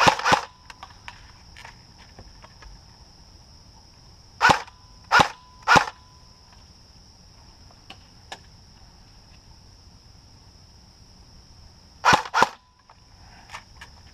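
Airsoft guns firing single shots as sharp pops: two at the start, three in quick succession about four to six seconds in, and two more near the end.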